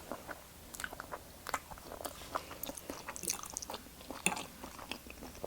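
Close-miked chewing and biting of food, heard as a run of soft, irregular mouth clicks and light crunches.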